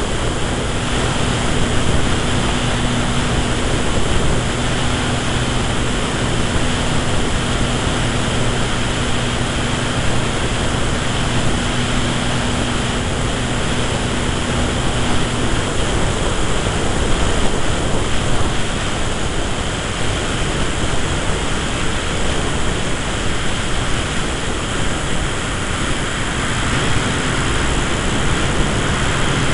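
Airflow rushing over the onboard camera of an electric radio-controlled Tiger Moth biplane in flight, with the steady hum of its electric motor and propeller. The hum drops out about halfway through and comes back near the end.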